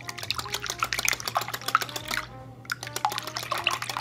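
Fork beating eggs and milk in a glass bowl: quick clinks of the metal fork against the glass over the sloshing of the liquid, with a brief pause about two seconds in.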